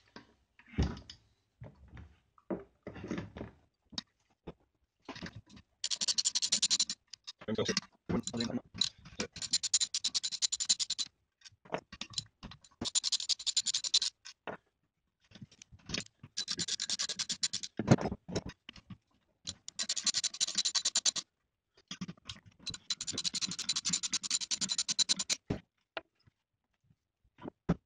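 Socket ratchet clicking in six short runs of rapid ticks while bolts are undone on an engine's housing, with a few short knocks of tools and metal parts in between.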